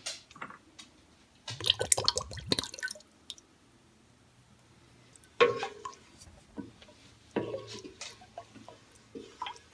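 Wooden spoon stirring thick cold process soap batter in a stainless steel pot, wet squishing with light knocks of the spoon against the pot, as bay rum fragrance oil is mixed in at trace. It comes in three short bouts, the busiest about a second and a half in, with near quiet between.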